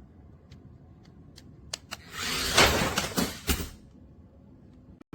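Toy RC stunt car running briefly: after a few light clicks, a noisy burst of motor and wheel noise starts about two seconds in and lasts under two seconds.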